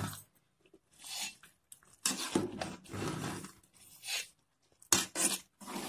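A metal ladle stirring and scooping biryani rice in a metal pot, scraping in several strokes with short pauses between them.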